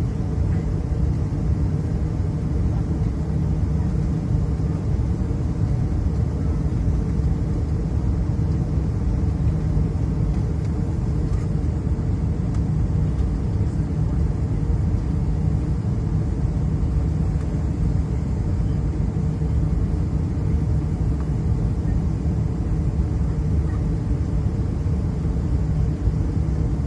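Steady low drone of an Airbus A320-211 in flight on approach, heard from inside the cabin: engine and airflow noise with a constant low hum, holding an even level throughout.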